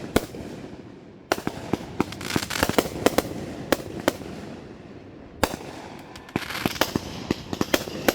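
Fireworks going off in rapid, irregular sharp bangs and pops, then a lull with a single bang, then another quick run of bangs.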